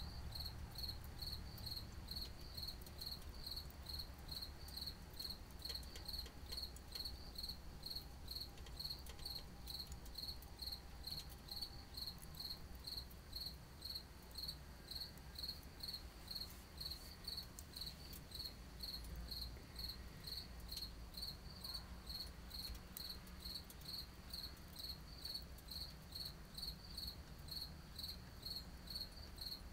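A cricket chirping steadily, about two chirps a second, over a faint low background rumble.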